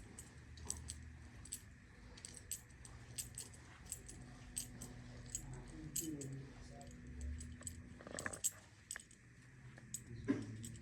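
Scattered light clicks and taps, several a second, over a low steady hum.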